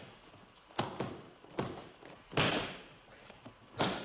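Aikido breakfalls: bodies and arms slapping down on tatami mats as practitioners are thrown, four sharp slaps and thuds, the third the loudest.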